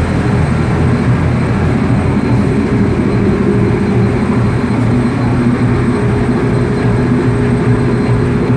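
A boat's engine running with a steady drone, heard from the open deck over the rush of the wake.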